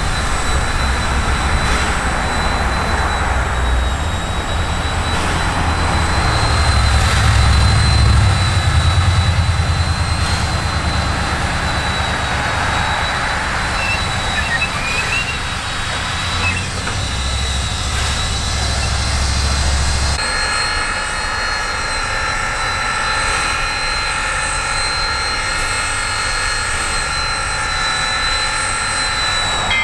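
Virginia & Truckee 4-6-0 No. 25 steam locomotive hissing steadily as steam jets from its open cylinder cocks beside the driving wheels, over a low rumble that drops away abruptly about two-thirds through.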